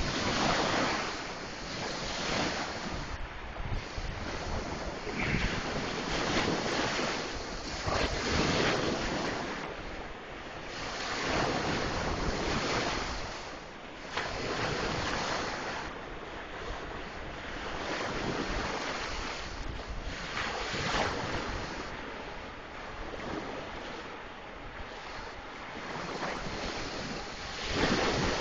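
Sea waves washing and breaking in the surf, swelling and easing every few seconds, with wind noise on the microphone; a loud surge near the end.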